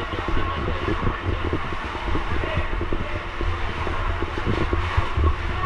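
Steady low rumble of a running vehicle engine, with irregular knocks and crackles over it.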